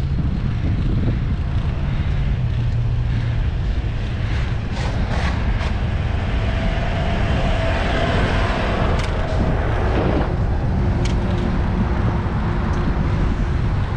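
Steady wind rumble on the microphone with road noise, as when riding, broken by a few sharp clicks.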